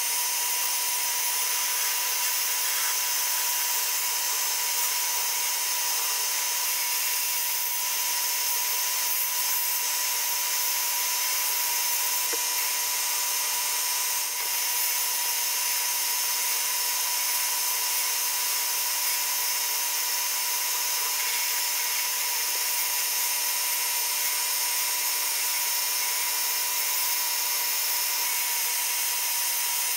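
Sandblasting gun firing compressed air and abrasive media inside a blast cabinet: a steady, unbroken hiss with a steady whine underneath, as rust and paint are stripped from small steel toy-truck parts.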